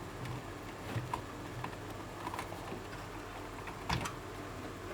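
Faint handling noise and small ticks, with one sharp click about four seconds in, as power connectors are pulled from the old desktop computer's power supply cables.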